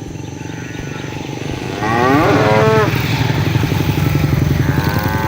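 Cow mooing: one loud call about two seconds in that rises and then falls in pitch, and a second call near the end. Under the calls runs a steady low rumble.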